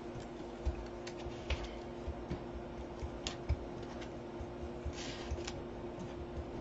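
Irregular light taps and clicks of paper pieces being handled and set down on a cutting mat, with a brief paper rustle about five seconds in, over a faint steady hum.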